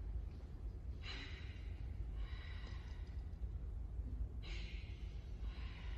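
A person breathing out in several short, breathy exhalations, about four in a row, over a steady low hum of the hall.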